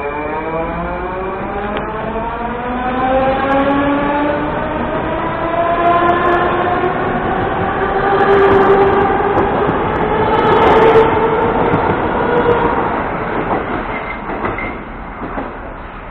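Moscow Metro 81-740/741 "Rusich" train pulling out of the station and accelerating away. Its traction motors whine in a stack of tones that rise steadily in pitch, over growing wheel rumble and a few rail clicks. The sound is loudest about eleven seconds in, as the last cars pass, then fades as the train leaves.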